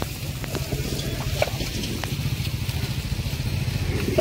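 A vehicle engine running steadily at idle, a low rumble, with a few short clicks over it.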